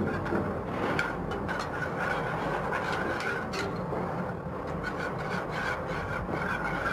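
Wire whisk stirring chopped chocolate into hot cream in a copper saucepan, the wires scraping and swishing against the pan in steady repeated strokes as the ganache comes together.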